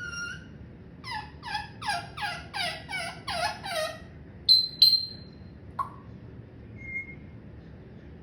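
Pet parrot giving a run of about eight quick repeated falling notes, like a laugh, then two short sharp high whistles.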